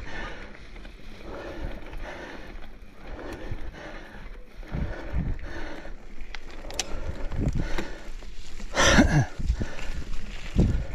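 Mountain bike climbing a steep dirt trail: knobby tyres rolling over dirt, roots and rocks, with knocks and rattles from the bike and its drivetrain. A louder burst comes about nine seconds in.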